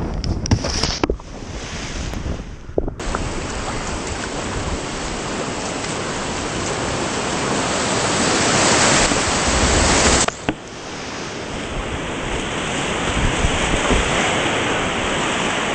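A kayak bumps down a grassy bank with a few sharp knocks. About three seconds in, a continuous rush of white water from the river weir takes over. Around ten seconds in the rush breaks off for a moment, then carries on more muffled, as spray hits the helmet camera.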